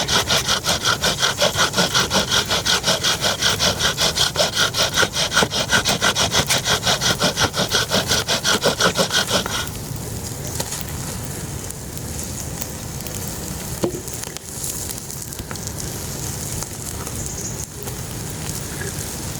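Hand saw cutting through wood in quick, even back-and-forth strokes, about four to five a second. The sawing stops abruptly about halfway through, leaving a quieter steady hiss with a few faint clicks.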